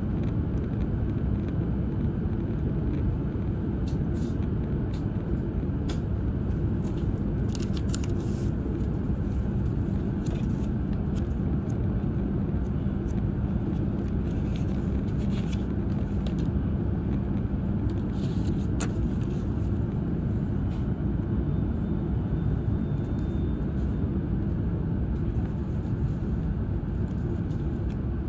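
Steady low rumble inside the cabin of an E5-series Shinkansen train under way, with faint high clicks and squeaks now and then.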